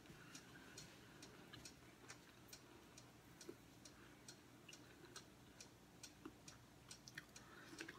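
Near silence with a clock ticking faintly and evenly, about two ticks a second.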